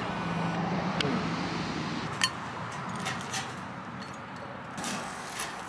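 Metal tongs clinking against a wire grill basket and a plate as grilled chicken wings are set down: a few scattered clinks, the sharpest about two seconds in.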